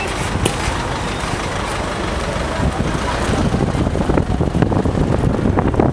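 City street traffic: a dense, steady rumble of vehicle engines and tyres, growing louder about halfway through.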